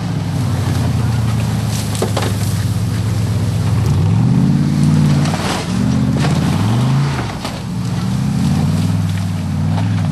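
Off-road 4x4 engine running hard, its revs rising and falling several times in the second half, with a few sharp knocks.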